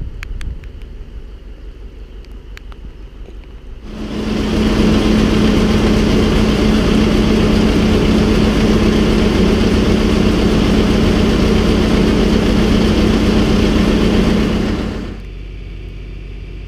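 Haylage pouring from a yellow conveyor chute into a Schuler feed wagon, a loud, steady rush over the steady hum of the machinery driving it. It starts about four seconds in and cuts off suddenly near the end. Before it there is a low rumble with a few light ticks.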